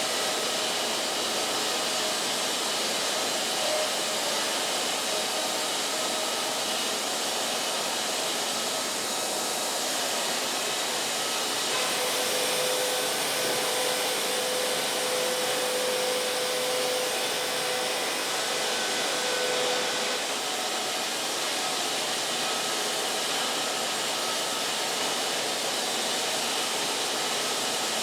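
Sawmill machinery running steadily: a continuous noise with faint steady whining tones.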